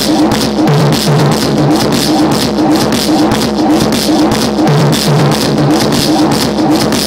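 Loud live electronic music played on hardware machines: a fast, driving rhythm of noisy hits, about five a second, over a low three-note bass figure that comes back about every four seconds.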